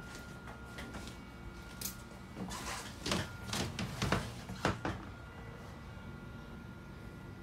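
A flurry of sharp knocks and clicks between about two and a half and five seconds in, over a steady low hum and a faint steady high tone.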